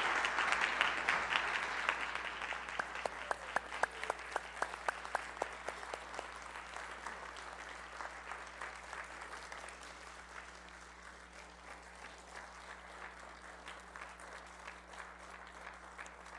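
Congregation applauding: full applause at first that thins and dies away over about ten seconds, with separate hand claps standing out as it fades.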